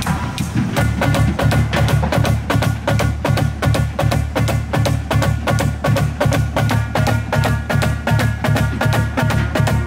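Marching drumline of snare drums, tenor drums and pitched bass drums playing a fast warm-up exercise together. The strokes are rapid and evenly spaced, with the bass drums sounding low beneath the ringing snares, and the full line settles into the pattern about a second in.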